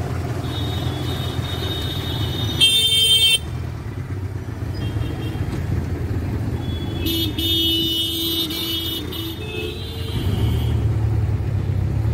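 Road traffic heard from inside a moving taxi: steady engine and road rumble, with vehicle horns honking. The loudest is a short horn blast about three seconds in, and more horn tones sound from about seven to nine seconds.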